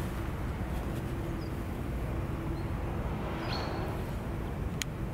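Steady low rumble of distant traffic, with a few faint, short, high chirps and a single sharp click near the end.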